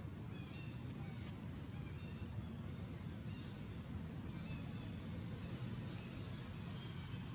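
Outdoor ambience: a steady low rumble, with faint short high chirps scattered through it.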